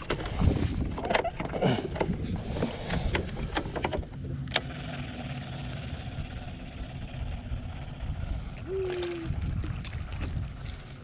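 Knocks and handling noise aboard a small fishing boat for the first four seconds, then a steadier low rumble with a faint hum.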